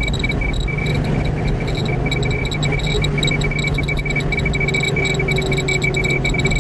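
Handheld radiation dosimeter beeping rapidly and unevenly, a sign of the high radiation level it is measuring, over the steady low drone of a car driving.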